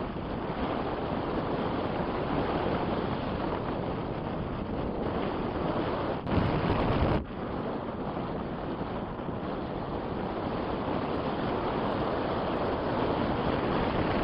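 Strong wind rushing over the microphone in flight, a dense steady rumble. About halfway through it surges louder for roughly a second, then drops back abruptly.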